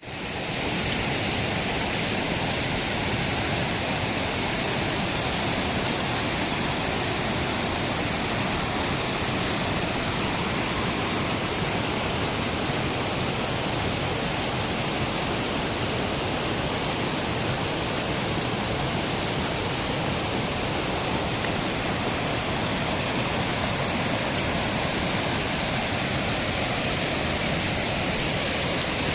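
Steady rushing of a river running high and swollen after two days of continuous rain.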